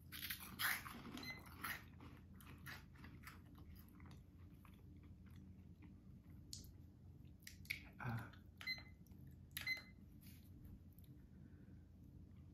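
People crunching and chewing spicy cheese puffs, the 6 Hot Balls challenge snacks: soft, irregular crunches, busiest in the first couple of seconds, then sparser, with a few more crunches near the end.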